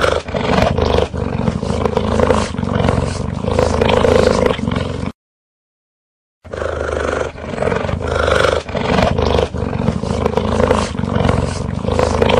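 A big cat's rough, continuous growling and roaring, heard in two long stretches with a silent gap of about a second and a half between them, presented as a cheetah's call.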